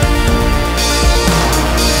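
Background music with a steady beat, drums and a strong bass line.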